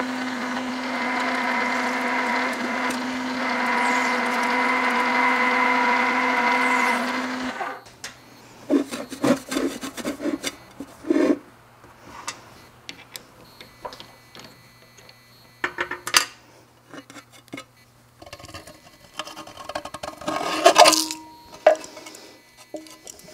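Drill press running a step bit through thin sheet metal: a steady whine with a grinding hiss for about eight seconds, then it stops. After that, scattered clinks and knocks as the metal part is handled, with a louder scrape near the end.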